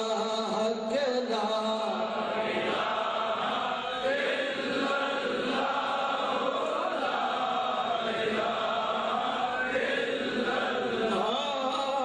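A man chanting a naat, an Urdu/Punjabi devotional poem in praise of the Prophet, unaccompanied, in long wavering melodic notes.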